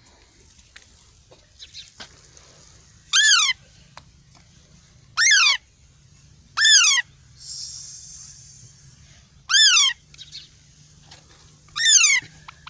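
Young parakeet giving five loud, harsh calls, each falling in pitch and spaced a couple of seconds apart.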